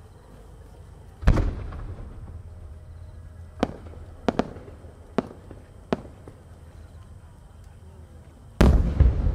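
Aerial fireworks exploding: a heavy boom with a long rumbling tail about a second in, several sharp single cracks over the next few seconds, then another heavy boom near the end.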